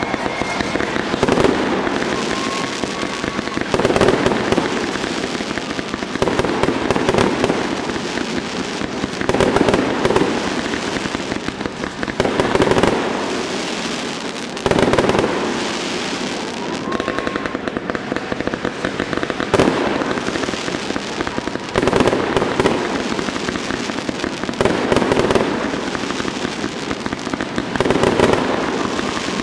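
Festive aerial fireworks display: shells bursting loudly every two to three seconds, with continuous crackling between the bursts.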